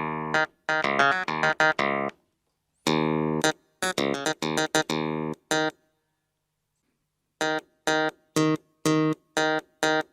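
Clavinet tone on a Casio AiX-engine electronic keyboard, played as short, detached notes and chords with a sharp plucked attack. There is a pause of about a second and a half a little past the middle, then repeated notes resume.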